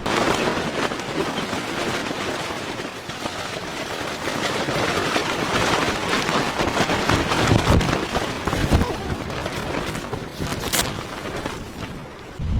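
Dense, irregular crackling and popping, with one sharper snap near the end.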